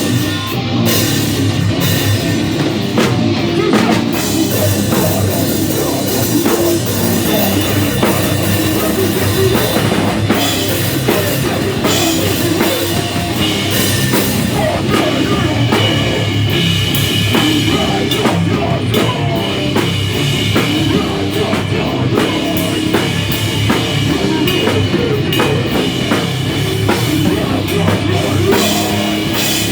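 A live heavy rock band playing loud and without a break: a pounding drum kit under guitars.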